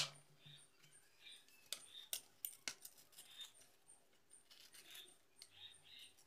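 Faint handling of a sheet of paper being folded and its crease pressed flat by hand on a wooden tabletop. There is a sharp tap right at the start, a few soft ticks about two seconds in, and light rustling near the end.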